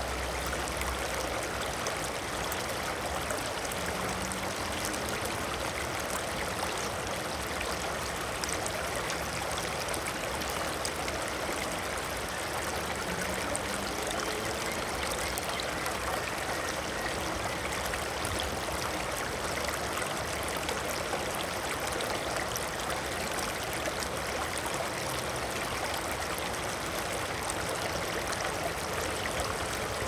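Water flowing steadily: an even, unbroken rush of running water.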